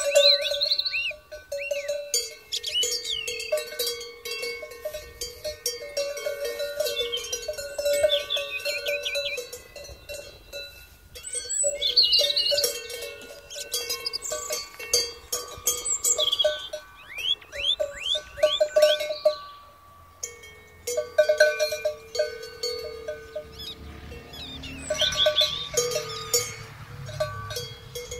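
A large cowbell on a grazing cow's neck collar clanking irregularly as the cow tears at grass and moves its head. The strokes come in uneven runs with brief pauses, each ringing out.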